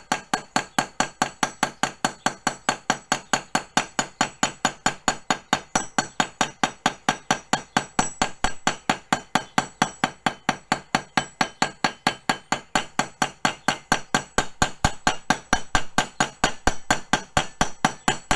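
Stretching hammer striking a strip of copper sheet on an anvil in rapid, even blows, about five a second, stretching the copper.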